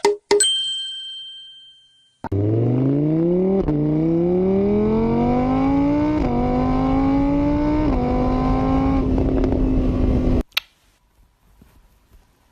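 A ringing chime that fades out, then a car engine accelerating hard through the gears, its pitch climbing and dropping back at each of three shifts, then holding steady before cutting off suddenly.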